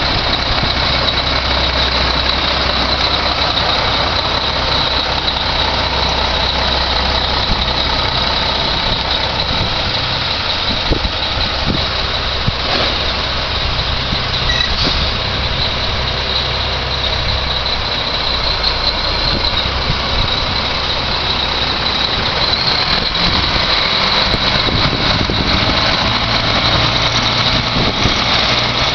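1993 Mack CH600 grain truck's diesel engine running steadily as the truck drives slowly past.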